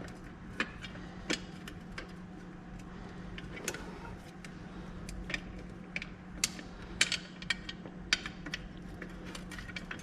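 Hand tools working a corroded 12 mm bolt: scattered, irregular light metallic clicks and taps of a wrench or socket on metal, over a faint steady hum.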